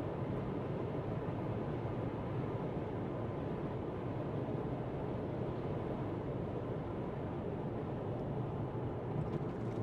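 Steady road noise of a car cruising on a motorway, heard from inside the cabin: an even hum of tyres and engine with no distinct events.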